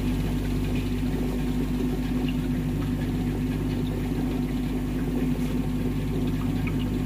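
Steady electrical hum of a running machine: a low mains drone under a stronger, higher buzzing tone, even throughout.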